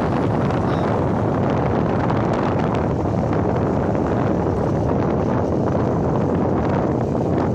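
Steady wind noise buffeting the microphone, a loud, even rush without let-up.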